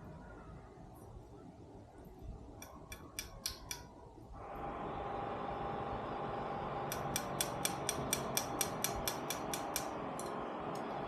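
Sharp metallic clicks from a small hand tool working on a spark plug as its gap is adjusted. There are a few clicks about three seconds in, then a quick run of about a dozen clicks, roughly five a second, near the middle. A steady rushing noise comes in just before halfway and goes on.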